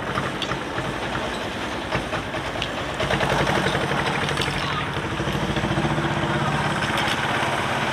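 Small engine of a miniature Peterbilt 379 semi-truck replica running as it drives and pulls a small flatbed trailer, its note getting steadier and louder about three seconds in.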